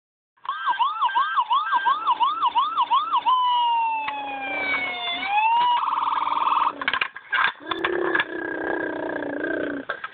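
Siren sound: a fast, repeated rising-and-falling yelp for about three seconds, then a long slow falling wail that turns upward again, followed by a short buzzing tone and more uneven siren-like sounds.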